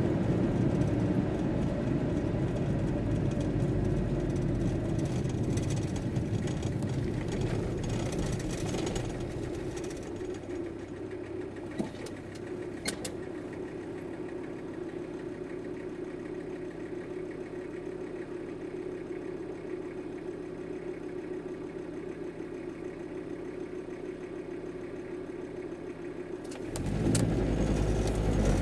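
VW T4 Transporter's diesel engine heard from inside the cab: running as the van rolls to a stop, then idling steadily and more quietly for about fifteen seconds, with a couple of small clicks. Near the end the engine note rises again as the van pulls away.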